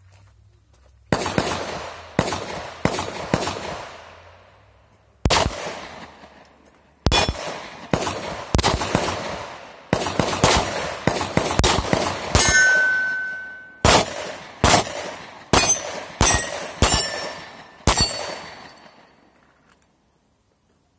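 Pistol shots fired in several quick strings with short pauses between, about two dozen in all, with steel targets clanging and ringing when hit; one plate rings on for over a second partway through.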